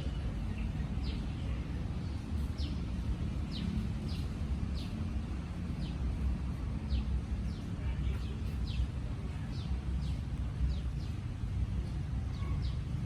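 A bird chirping over and over: short, high calls that drop in pitch, about one or two a second, over a steady low rumble.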